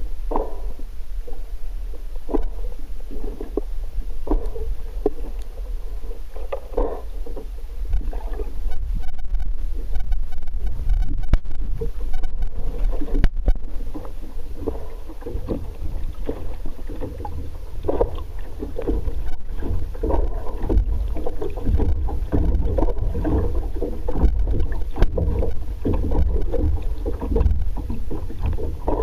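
Underwater noise from a submerged camera: a steady low rumble of moving water with irregular gurgles and a few soft clicks.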